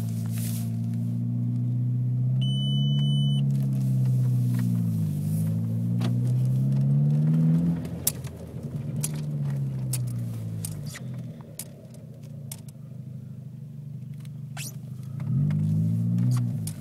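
2003 VW GTI's 1.8-litre turbocharged four-cylinder running, with a low pitched hum that falls and rises again twice and fades for a while in the middle; the owner is chasing a weird gurgling noise from the car. A brief high beep sounds about two seconds in.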